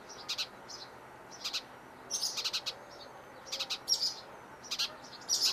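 A small songbird chirping: short, high chirps in little groups about a second apart.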